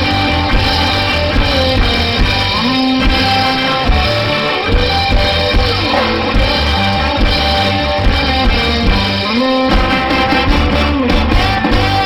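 Ska band playing with a steady beat: drum kit, guitars and a horn section with saxophone and trombone.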